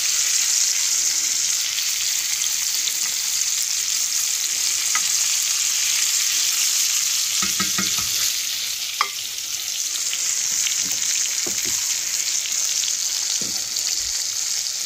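Ribeye steak sizzling in melted butter in a cast-iron skillet: a steady frying hiss, with a few light clicks of a utensil against the pan while the butter is spooned over the steak.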